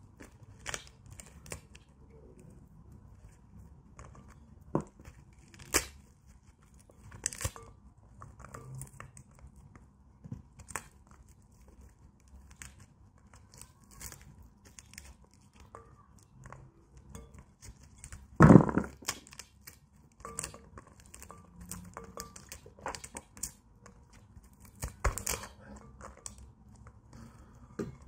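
Close-up handling sounds from hands working with objects below the microphone: scattered short clicks and taps, with one much louder knock about two-thirds of the way through.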